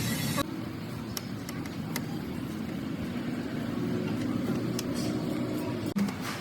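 Rebuilt Honda Civic engine running steadily, with a few faint ticks and one sharp click near the end.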